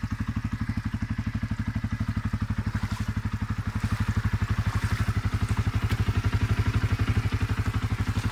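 CFMOTO CForce 850 ATV's V-twin engine idling steadily, with a fast, even pulsing.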